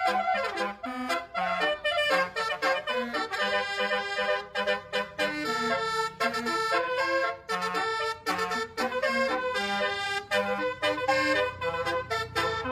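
Basuri telolet bus horn playing a quick melody of brassy, reedy notes while the bus is being tried out on its new tunes. A low rumble rises under it near the end.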